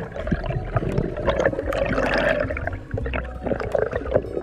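Underwater camera audio: water churning and gurgling around the housing, with a low rumble and many short crackling clicks throughout.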